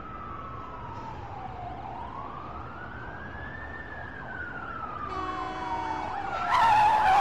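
Police car siren wailing in slow rising and falling sweeps, growing louder as the car approaches. Near the end a loud tire screech breaks in as the car skids to a stop.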